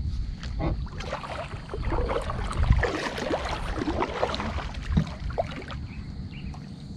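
Kayak paddle strokes: the blade dipping into and pulling through the water, with splashing and dripping.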